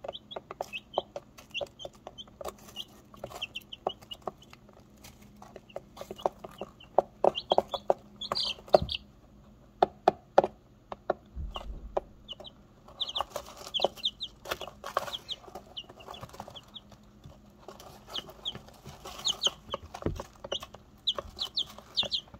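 Barnyard-mix chicks peeping: short, high calls that come in busy clusters, over frequent light taps and rustling as they peck and scratch in pine shavings.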